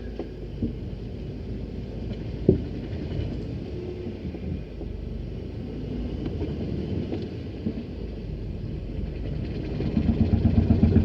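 Mercedes-Benz 190E moving in reverse, heard from inside the cabin: a low rumble with one sharp knock about two and a half seconds in. Near the end a fast, regular grinding swells up, which the driver puts down to the brakes binding on.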